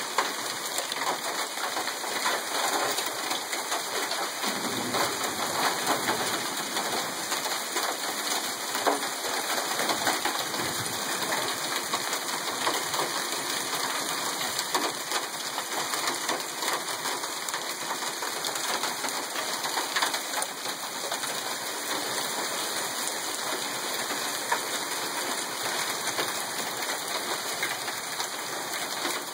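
Heavy rain with small hail falling on parked cars and the ground: a dense, steady hiss full of fine ticking impacts.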